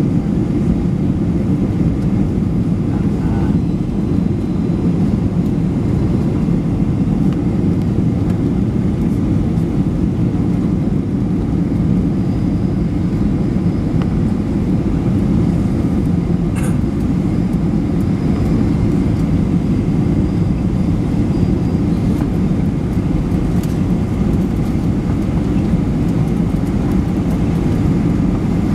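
Steady cabin noise inside a Boeing 737-900ER in flight: airflow over the fuselage and its CFM56 turbofan engines make an even, low, unbroken rumble.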